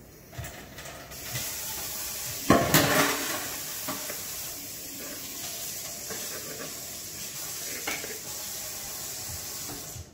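Kitchen faucet running into a stainless steel sink, a steady hiss of water, briefly louder about two and a half seconds in and shut off at the end.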